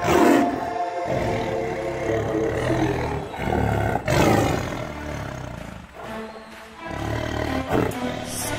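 Music soundtrack with a big cat's roar laid over it as a sound effect. There are two loud sudden hits, one at the start and one about four seconds in, and the music drops lower for a moment a little after the middle.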